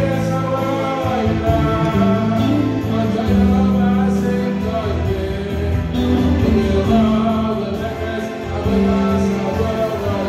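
A young man singing into a handheld microphone, amplified, over electronic keyboard accompaniment, with long held notes.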